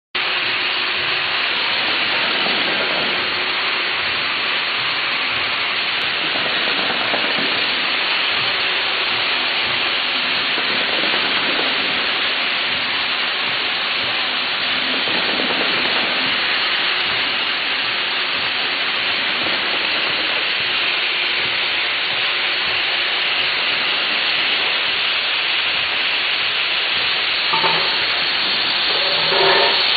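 Bottle cap pad printing machine with a bowl feeder running: a steady, dense hiss-like clatter. A couple of brief louder sounds come near the end.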